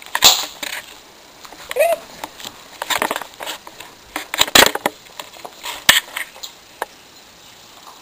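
Irregular scuffs, taps and bumps of a kitten playing and scrambling on a hardwood floor, with one short rising squeak about two seconds in.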